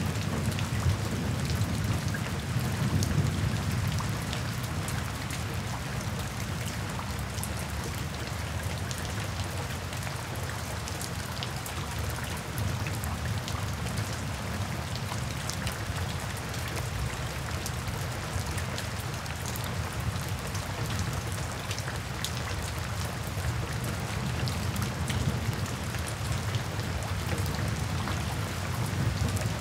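Steady rain falling, with a low rumble of thunder dying away over the first few seconds.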